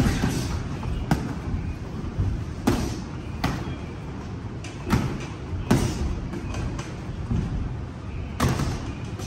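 Boxing gloves landing during sparring: about half a dozen sharp thuds and slaps of punches at irregular intervals.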